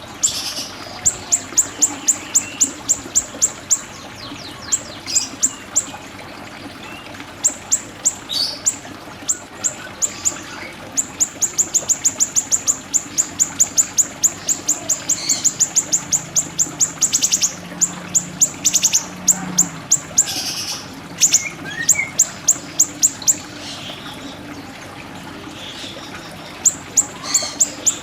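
Siri-siri bird calling: rapid runs of short, sharp, high chips, about four to five a second, going on for several seconds at a time with brief pauses between runs.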